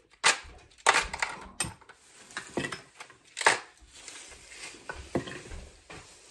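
White plastic ice cube tray being pressed and twisted, the ice cracking loose with several sharp cracks and clatters, the loudest near the start and about three and a half seconds in.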